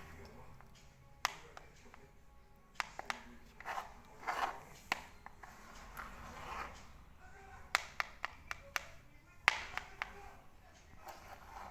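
Slime mixture being stirred in a container: irregular sharp clicks and taps of the stirring utensil against the container, with short wet, sticky patches in between.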